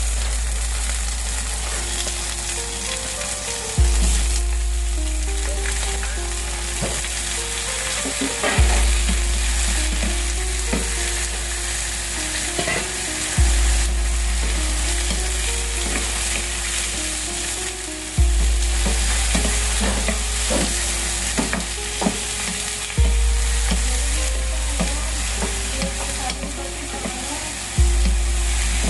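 Shrimp frying and sizzling in a hot pan, stirred from time to time. Quiet background music plays underneath: a short-note melody over a deep bass note that comes in about every five seconds.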